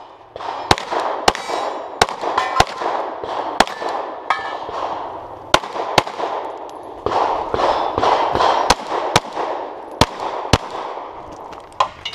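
Glock 34 9mm pistol fired through a practical-shooting stage: about a dozen sharp, echoing shots at uneven intervals, singly and in quick pairs. Some shots are followed by the clang of hit steel targets.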